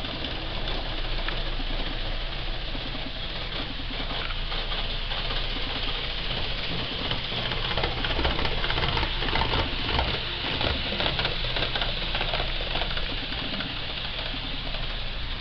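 HO-gauge model train running along the layout: a small electric motor whirring with rapid clicking of the wheels on the track. It gets louder around the middle as the train passes close by.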